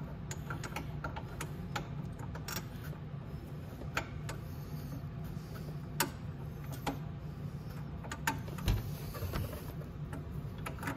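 Scattered light metallic clicks and clinks of nuts being handled and started by hand on a motorcycle's exhaust mounting, over a steady low hum.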